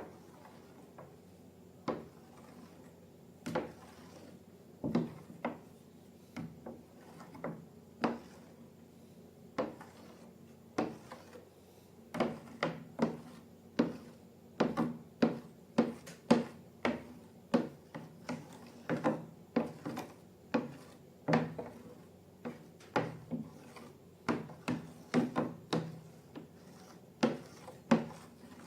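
Light, irregular taps and clicks of small hard objects being handled, a second or two apart at first, then quickening to about two or three a second from about halfway through.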